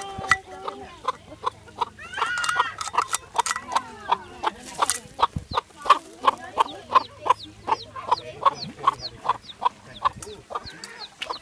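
Mother hen clucking steadily to her chick, short clucks repeating about three times a second, with the chick's high, falling peeps mixed in.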